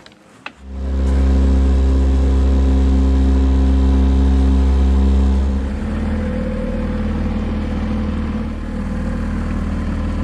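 An engine comes on about a second in and runs loudly and steadily, then its note drops and changes about six seconds in and it keeps running.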